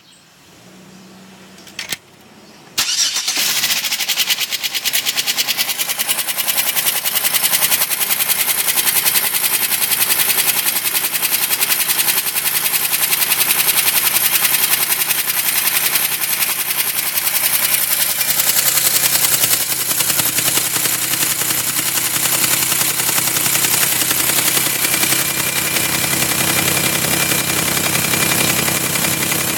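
The 2005 Chevrolet Equinox's 3.4-litre V6 starts about three seconds in and runs steadily with a rapid, even knock. The knock appeared after the cylinder heads were rebuilt (one cracked head welded and machined) and the head gaskets replaced; the machine shop says it is a noise they hear often after this kind of work.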